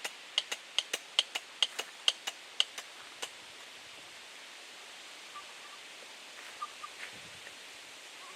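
Bulk-loading caulk gun clicking about a dozen times in quick succession, roughly two or three a second, as its mechanism is worked to push the Permachink caulk forward. The clicks stop about three seconds in, leaving a few faint ticks.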